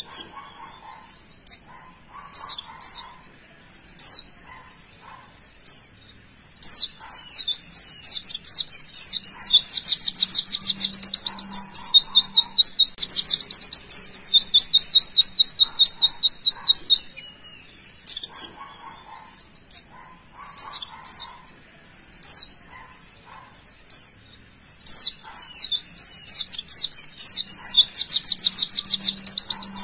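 A caged white-eye (pleci) singing: scattered sharp high chirps, then a long run of very fast repeated notes lasting about eight seconds, with another run starting near the end. This rapid-fire run is the 'tembakan' song that bird keepers prize in a pleci.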